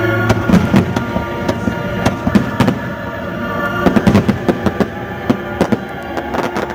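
Fireworks bursting in a rapid series of bangs, several a second, over loud show music from the park's speakers.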